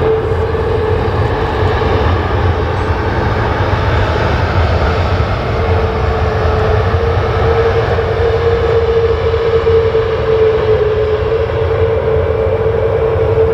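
Jet engines of an arriving Boeing 737 MAX 8 running, a steady drone with a held, slightly wavering tone over a broad rumble.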